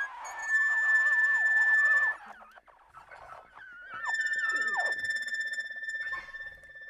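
Experimental electronic sound: a held, steady high tone over wavering, gliding pitches. It thins out about two seconds in, then the steady tone comes back with pitches sliding downward.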